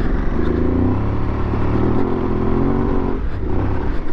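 Aprilia Tuareg 660's parallel-twin engine running as the bike rides up a dirt road, with a short dip in the engine sound about three seconds in.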